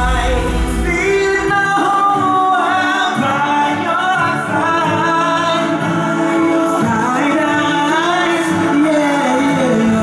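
Male pop vocal group singing a song in several-part harmony through microphones. The deep bass drops out about two seconds in and comes back near the end.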